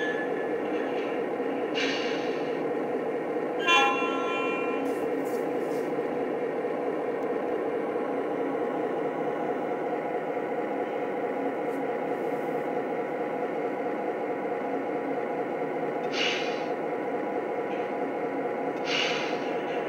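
Lionel Legacy Union Pacific E9 model diesel locomotive's onboard sound system playing a steady diesel engine idle, with a short horn blast about four seconds in. Brief hisses of air sound about two seconds in and twice near the end.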